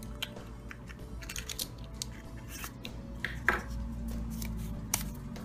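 A Kinder Surprise egg's plastic toy capsule being pried open and its small plastic toy pieces and paper leaflet handled: scattered clicks and scrapes, with one louder snap about three and a half seconds in.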